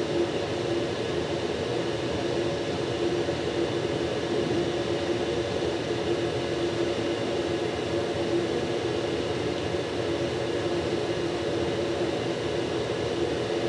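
An electric fan running steadily: an even whooshing rush with a steady low hum.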